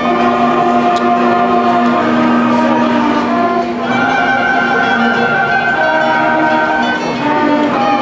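Marching band's brass and woodwinds playing long held chords, moving to a new chord about four seconds in and again near seven seconds.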